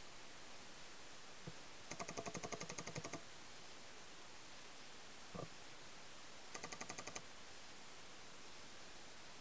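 Paintball markers firing two rapid strings of shots, about a dozen in the first and eight in the second, at roughly ten shots a second. A single dull knock falls between them.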